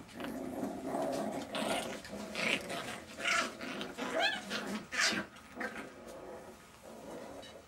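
Jack Russell Terrier puppies play-fighting, giving small growls and yelps, with a short run of high squeaks about four seconds in. The noise dies down near the end.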